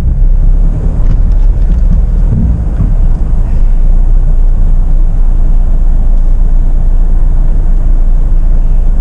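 Jeep Meridian driving slowly over a rough off-road trail, a heavy steady low rumble of engine and vehicle.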